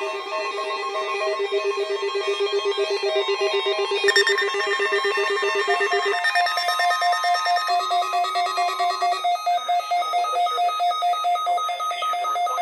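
Several weather radios, including a BRK First Alert WX-67 and a RadioShack 12-259, sounding their alert beeps at once for a weekly test, each a rapidly pulsing tone at its own pitch. A higher beep joins about four seconds in, one alarm gives way to another about six seconds in, and some drop out around nine seconds.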